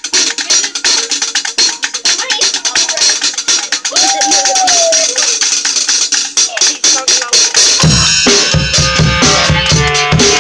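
Drum kit played with sticks: a fast flurry of strokes on the snare and cymbals, then about eight seconds in the bass drum joins with heavy, regular beats.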